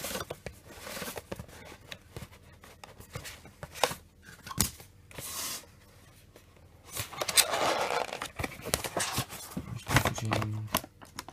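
Cardboard box and clear plastic packaging being handled: sliding, rustling and scraping with scattered clicks and taps, and a longer stretch of rustling about seven to nine seconds in.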